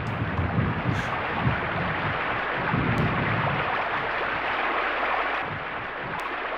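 Steady rushing noise played back from a cassette recording of a 1980s Soviet pop album. A low rumble under it dies away about three and a half seconds in.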